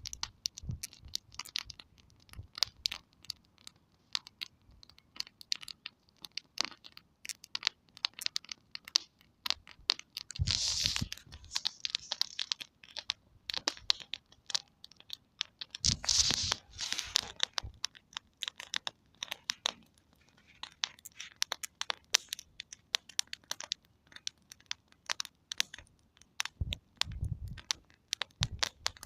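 Small wood campfire crackling and popping, with many sharp irregular snaps. Two louder stretches of rustling come about ten and sixteen seconds in.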